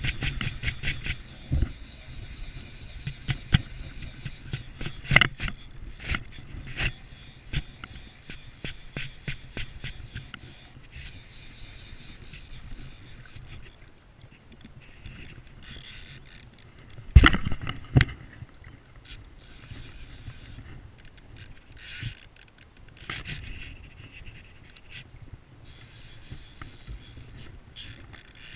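Fly reel ratchet clicking as line is wound in, mixed with a jacket sleeve rubbing against the camera, and a loud knock on the camera about 17 seconds in.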